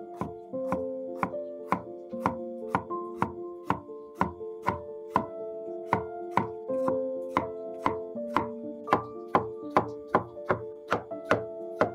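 A cleaver slicing bitter melon into rings on a wooden chopping board: a sharp knock of the blade on the board about twice a second, steady throughout, over soft music with held notes.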